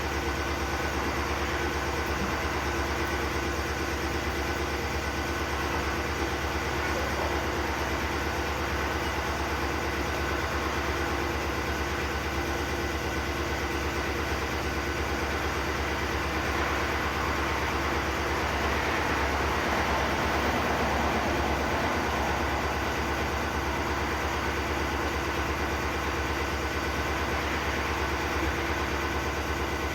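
A car engine idling steadily, a low even hum with a fixed pitch.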